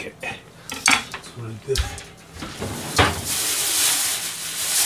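A knife clicks against a wooden cutting board as raw salmon is sliced. About three seconds in there is a loud knock, then a steady hiss for the last couple of seconds.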